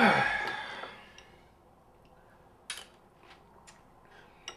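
A thump and a squeal falling in pitch and fading over about a second, then a few light clinks of a metal spoon against a ceramic cereal bowl.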